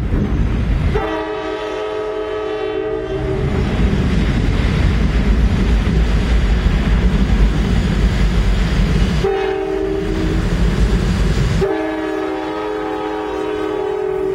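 Norfolk Southern diesel freight locomotives sounding a multi-note air horn: a long blast about a second in, then a short blast and another long one near the end. Underneath, the engines and wheels rumble steadily and grow louder in the middle as the locomotives cross the steel girder bridge close by.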